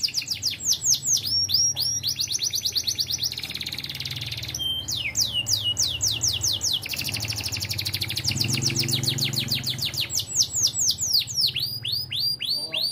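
Canary singing a long, fast 'ting ting' song: rapid runs of high, repeated downward-sweeping notes, the trill changing every second or two, with a brief break about four and a half seconds in.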